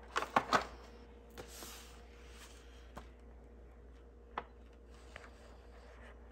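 A cardboard product box being handled and set down on a wooden table: a quick cluster of soft knocks in the first second, then a brief rustle and a few faint, scattered clicks.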